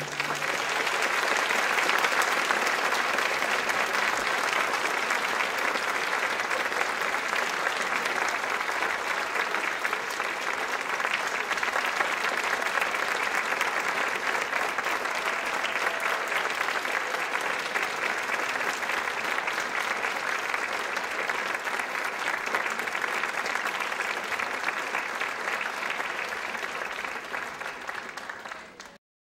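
Audience applauding steadily, easing off slightly, then cut off abruptly near the end.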